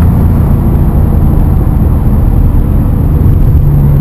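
Audi A6 3.2-litre V6 running steadily under way through a muffler-delete exhaust that keeps its two catalytic converters and four resonators. It is heard from inside the cabin, muffled by a camera housing.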